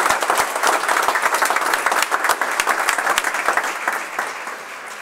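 A small group of people applauding, the clapping thinning out and fading near the end.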